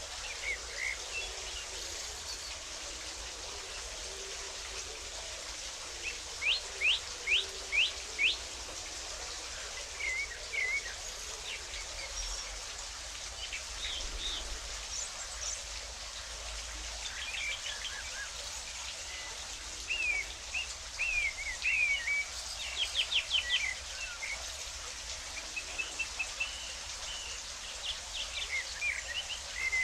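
Small songbirds chirping and calling over a steady hiss of running water, with a run of five quick notes about six seconds in and another fast burst of notes a little over twenty seconds in.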